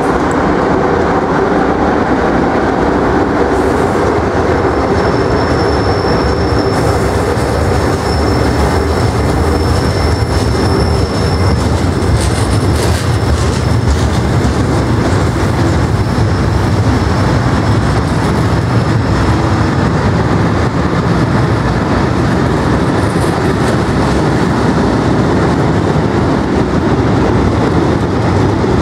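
A Class 92 electric locomotive and its long freight train of bogie tank wagons rolling close past, with a steady rumble and clatter of steel wheels on the rails. A thin high squeal comes in about five seconds in and fades out by about twenty seconds.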